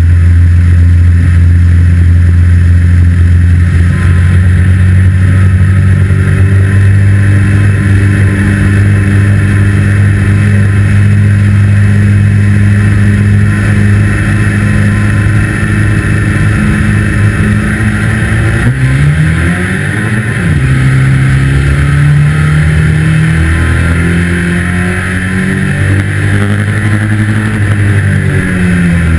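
2-litre saloon stockcar's engine at racing revs, heard from inside the cockpit. It holds a steady pitch for most of the first two-thirds, then falls and rises again several times as the throttle is lifted and reapplied.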